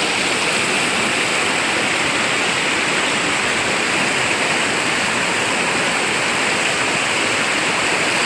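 Flowing river water rushing steadily and evenly.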